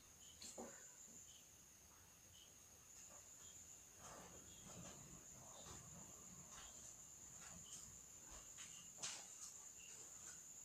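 Faint pencil strokes scratching on paper during sketching, with a light tap near the end, over a steady high-pitched whine in a near-silent room.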